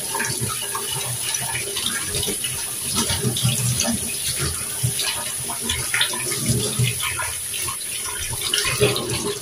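Kitchen tap running into a sink while potatoes are washed under it, the water splashing unevenly as they are handled. The flow cuts off near the end.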